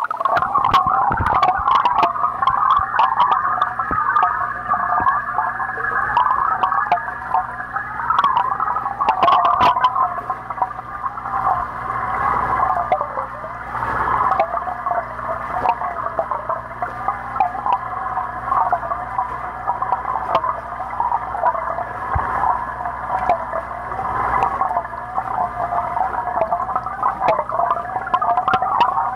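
Muffled underwater bubbling and gurgling in a fish tank, heard through a submerged camera: a steady, warbling wash with scattered sharp clicks.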